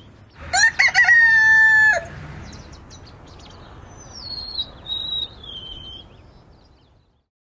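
A rooster crowing once, loud: a rising start and then a held note lasting about a second and a half. A few seconds later comes a faint, high call that falls in pitch.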